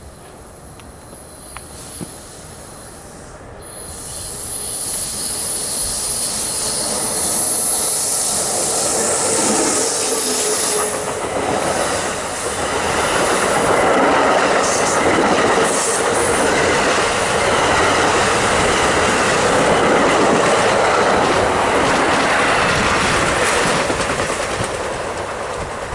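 A train passing on the rails, its wheel and rail noise swelling over the first several seconds, staying loud for about ten seconds, then easing near the end.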